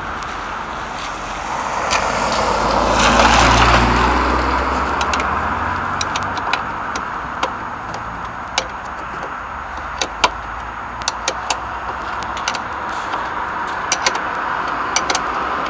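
Road traffic going by, with one vehicle passing about three seconds in. From the middle on come scattered sharp metallic clicks and clinks of hand tools working on the motorcycle's wheel and shock absorber fittings.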